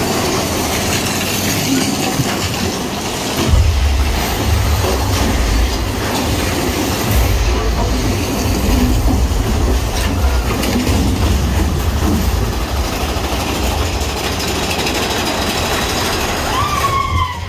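Mine-train roller coaster running on its track through a dark tunnel: steady rattling and clatter of the cars, with a deep rumble setting in about three and a half seconds in and carrying on.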